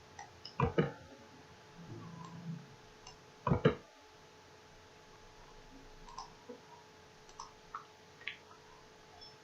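Computer mouse clicking: a sharp pair of clicks under a second in, a louder pair about three and a half seconds in, then lighter scattered clicks.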